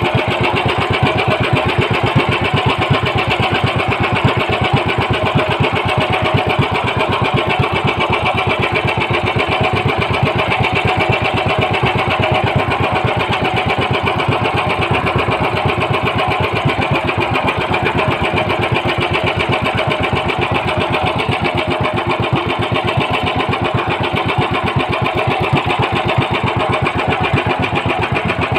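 Boat engine of a motorized outrigger boat (bangka) running steadily under way, a loud fast even chugging that does not change.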